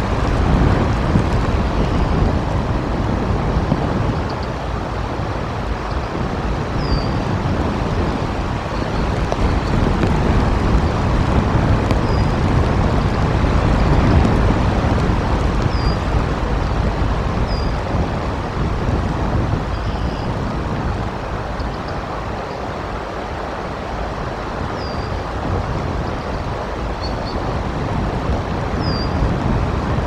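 Wind gusting over an outdoor microphone: a dense low rush that swells and eases every few seconds. Faint, short, high bird chirps come through every second or two.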